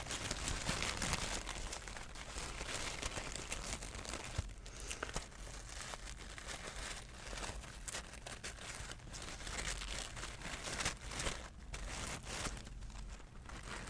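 Continuous close-miked crinkling and crackling, a dense run of small crackles and rustles from a crinkly material being handled for ASMR.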